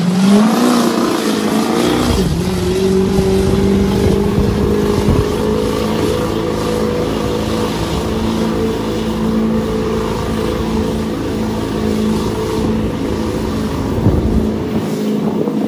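Lifted Ford Super Duty mega truck's engine revving up at the start, then held at high, steady revs as the truck churns through a deep mud pit.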